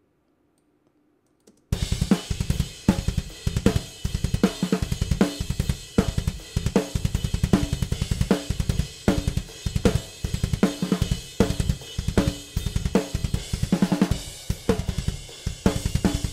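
Raw, unmixed multitrack recording of a metalcore drummer's acoustic kit playing back, starting about a second and a half in after a brief silence: rapid double bass drum under steady, hard snare hits and cymbals. The drums are the natural tracks as tracked, tight and punchy, with no samples added.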